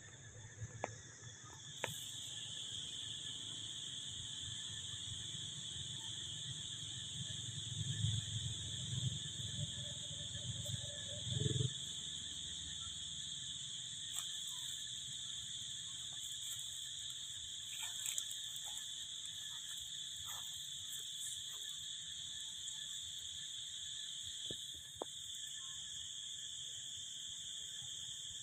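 Insect chorus: a steady high-pitched buzzing that sets in about two seconds in and holds, with a few low rumbles near the middle.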